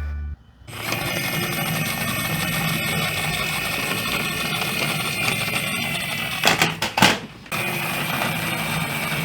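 Two small toy buses running along a plastic toy track: a steady whirring rattle of small wheels, broken about six and a half seconds in by two sharp knocks and a short pause before it resumes.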